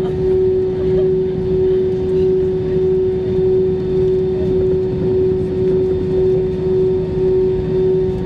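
Cabin noise inside an Airbus A320 taxiing onto the runway at low thrust: a steady engine drone carrying one constant mid-pitched tone over a low rumble, gently swelling in loudness about once a second.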